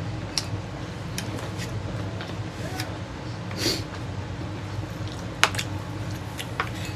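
Quiet sounds of eating at the table: scattered light taps and clinks of a fork on a paper plate and a spoon in a bowl of cherries, the sharpest clink about five and a half seconds in, over a steady low hum.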